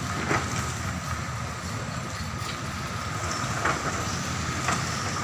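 Tracked excavator running, its diesel engine a steady low drone, with a few short sharp cracks as its bucket breaks branches off a tree.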